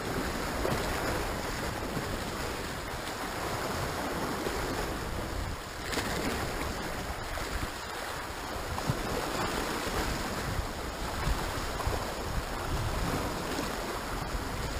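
Sea surf washing and churning against rocks at the water's edge, a steady rushing wash with some wind rumble on the microphone.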